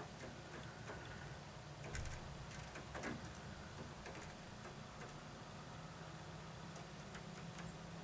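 Great tit pecking at a seed with its beak: faint, irregular ticks, the loudest about two and three seconds in, over a low steady hum.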